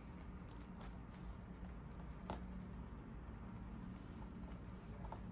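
Faint scattered clicks of a trigger finger knife cutting through the tendon sheath of a ring finger, the clearest about two seconds in, over a low steady hum.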